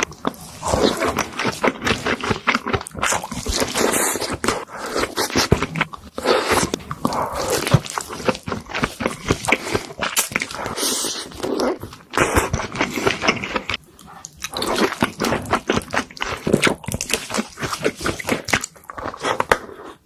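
Close-miked eating sounds: a person biting and chewing food, with many wet clicks and crunches and a few short pauses.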